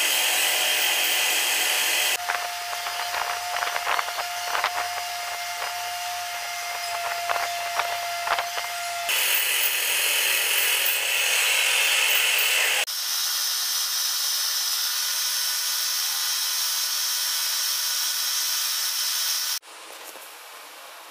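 Paint spray gun hissing in several cut-together stretches of steady air and paint spray. In one stretch a steady whine and scattered clicks run under the hiss. The sound drops away sharply near the end.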